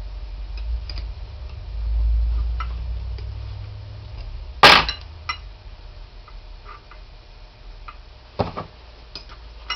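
Metal clinks and small ticks of hand tools working on a turbocharger's bolts, with one sharp metal clank about halfway through and another knock near the end.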